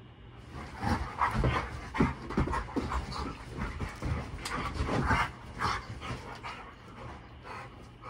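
Two Dobermans play-fighting, panting hard with a quick, irregular run of huffs and scuffles on a mattress, busiest from about a second in and easing off near the end.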